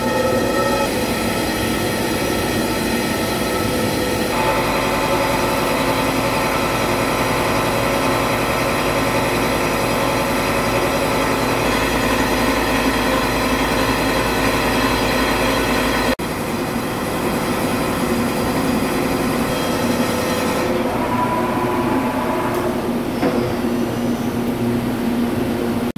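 CNC horizontal boring mill's cutter taking a finishing cut on a large steel wheel hub: a steady machining noise with several held, ringing squeal tones. The sound changes abruptly about two-thirds of the way through, and the high part of it drops away a few seconds before the end.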